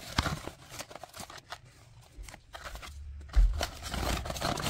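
A cardboard box being opened and handled: flaps and packaging scraping and crinkling in a run of uneven clicks and rustles, louder a little past three seconds in and near the end.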